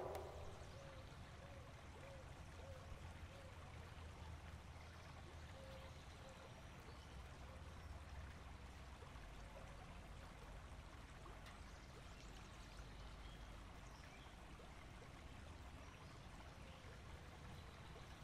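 Faint, steady flowing water of a forest creek.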